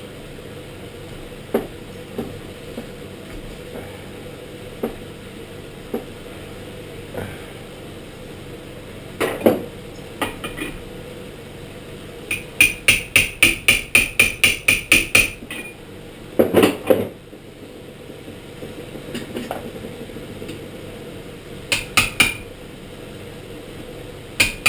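A small hammer tapping a metal tube down over a knife tang to compress stacked leather washers. Scattered light taps give way about halfway through to a quick run of about a dozen ringing metallic strikes, roughly five a second, followed by a few heavier knocks later on.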